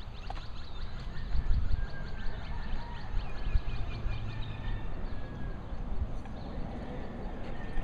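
Small birds chirping in quick runs of short notes, over a low irregular rumble of wind on the microphone.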